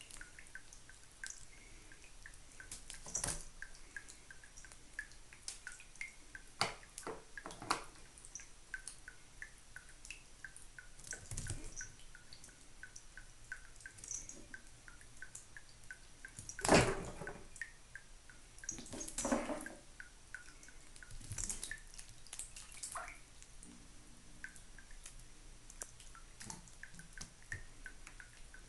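Water dripping steadily from a bathroom faucet into a porcelain sink, a regular run of small drips. Several louder knocks and scuffles break in as a cat moves about in the sink, the loudest about seventeen seconds in.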